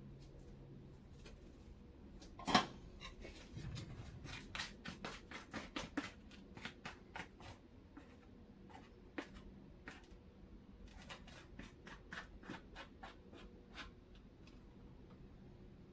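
Kitchen handling sounds: a sharp click about two and a half seconds in, then a quick run of light clicks and scrapes that thins out to scattered ticks.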